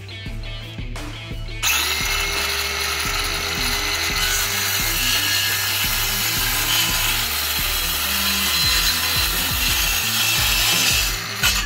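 INGCO 20 V cordless circular saw starting up about two seconds in, its motor whine rising briefly, then running at a steady pitch while cutting through a block of wood. It stops shortly before the end.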